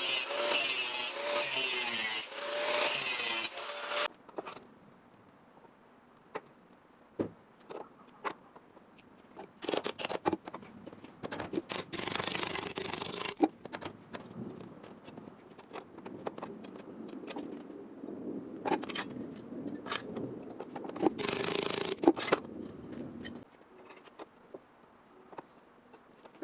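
Sheet-metal bodywork on a car body: a power tool cutting or grinding for the first few seconds, then stopping. After that, intermittent scraping and clicking from hand work on the panel.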